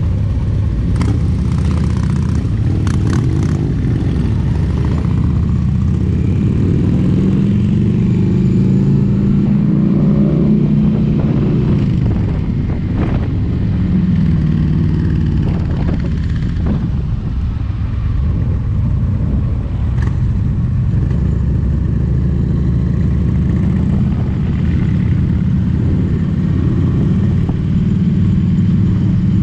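Kawasaki Versys 650's parallel-twin engine pulling away from a stop and riding on, its pitch rising and falling several times with throttle and gear changes, among other motorcycles riding close by.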